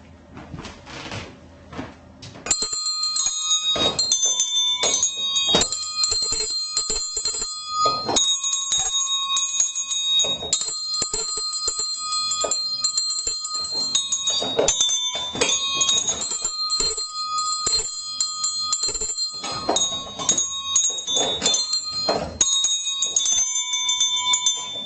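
Several award hand bells rung together in quick, overlapping strokes, a jangling chorus of ringing tones at several different pitches. A few quiet handling clicks come first, and the ringing starts about two and a half seconds in.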